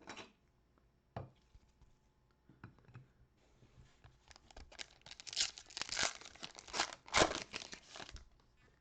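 Trading card pack wrapper being torn open and crinkled. A few light taps come first, then a dense run of crackling and ripping lasts about four seconds.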